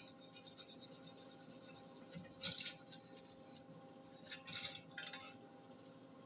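Wire-feed (MIG) welder arc crackling in two short bursts, each about a second long, the wire speed just turned up a little, over a faint steady hum.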